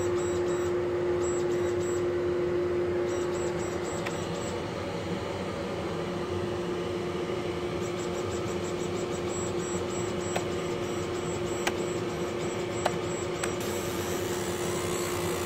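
A 60-watt MOPA fiber laser engraver running: a steady hum with a single held tone over fan noise, and a faint high whine that switches on and off in short runs. A few sharp ticks come now and then.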